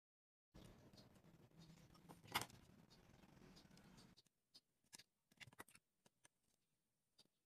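Wooden popsicle sticks being handled and set down on a wooden board: scattered light clicks and taps, the loudest a sharp click about two seconds in. A low background rumble runs under the first part and stops about four seconds in.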